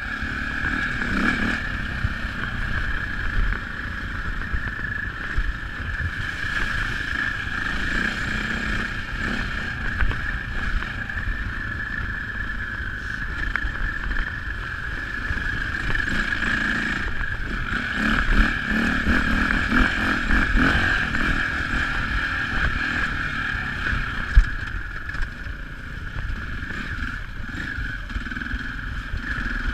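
KTM dirt bike's engine running under way over a dirt trail, heard from a handlebar-mounted camera with wind and the rattle of the bike bouncing over the ground. One sharp knock late on.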